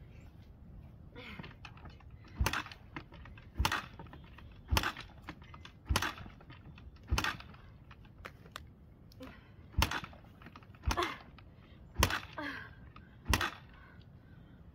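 Yamaha TT-R125 four-stroke single being kick-started over and over: nine sharp clacks of the kick-starter about a second apart, with a short pause in the middle, and the engine not catching. The owner blames a choke that keeps falling down for the failure to start.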